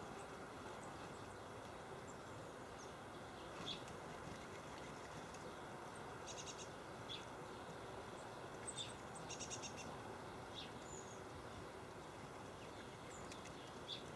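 Small garden birds calling: scattered short, high chirps and two quick rattling series of notes, over a steady low background hiss.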